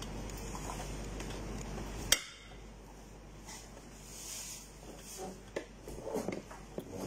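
Shawarma flatbread being rolled and handled on a metal tray: soft rustles and light knocks of food and gloved hands against the tray. About two seconds in there is a single sharp click, and a steady background hum stops with it.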